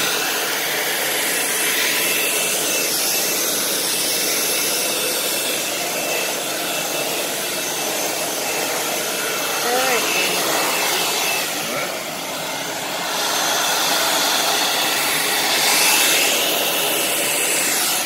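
Handheld hair dryer running steadily with a faint high whine, blowing on wet acrylic pour paint to spread it across the canvas. The noise dips briefly past the middle, swells near the end, then stops as it is switched off.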